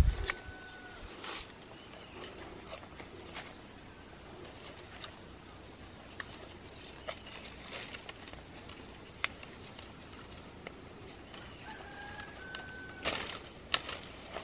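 Steady high-pitched drone of insects, with a rooster crowing at the start and again about twelve seconds in. Leaves rustle and a few sharp clicks come near the end as hands work through the foliage.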